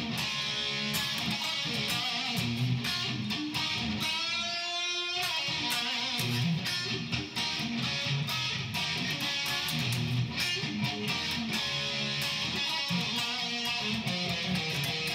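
Ibanez electric guitar played through a Line 6 amp: funky rhythm strumming with choppy, percussive strokes. About four seconds in, the strumming gives way to one held note with vibrato lasting about a second, then the rhythm picks up again.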